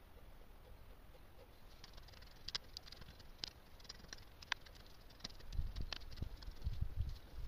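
Hoe working loose, crumbly garden soil. Scattered sharp clicks of clods and small stones come first, then dull thuds of the blade striking the ground in the last two seconds.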